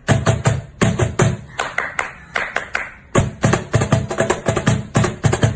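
Rhythmic percussion of sharp claps and taps in a quick beat, which grows denser about three seconds in.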